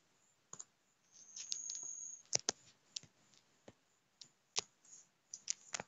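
Faint, irregular taps and clicks of fingers typing on a smartphone's touchscreen keyboard, about a dozen in a few seconds, with a brief rustle about a second in.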